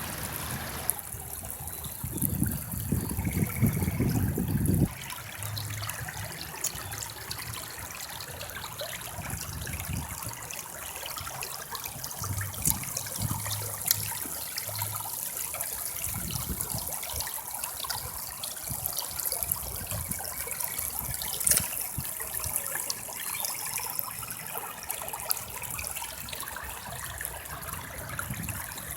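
River water flowing and trickling steadily, with a louder low rumble from about two to five seconds in.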